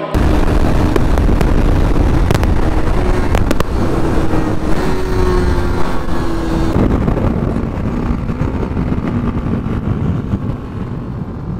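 Bajaj Pulsar NS200 single-cylinder motorcycle engine running hard at full throttle during a drag run, with its note drifting in pitch. Heavy wind roar on the microphone sits over it and starts suddenly.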